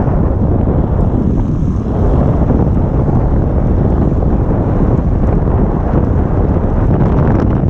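Strong wind buffeting a helmet-mounted camera's microphone on a fast bicycle descent: a loud, steady, dense rumble.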